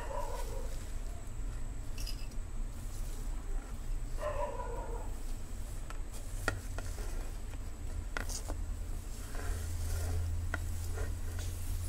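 Hands sweeping mint leaves, green chillies and fennel seeds off a plate into a steel mixer jar: scattered light clicks and scrapes as they drop in, over a steady low hum.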